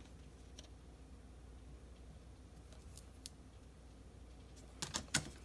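Faint clicks and taps of a pen, a wooden ruler and a sheet of paper being handled on a tabletop: one click at the start, a couple of light ticks about three seconds in, and a quick cluster of taps near the end.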